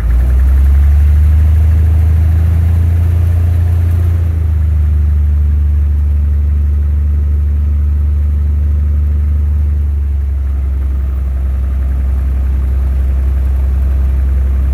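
Stinson light aircraft's piston engine and propeller running steadily, heard from inside the cabin; the level eases slightly about four seconds in.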